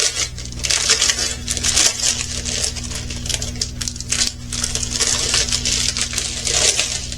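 Small plastic bags of diamond-painting drills being handled: the plastic crinkles and crackles continuously, with many small clicks from the resin drills inside.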